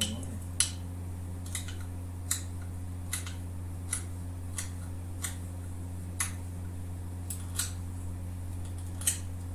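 About a dozen short, sharp clicks at uneven intervals of roughly half a second to a second, the loudest about half a second in, over a steady low hum.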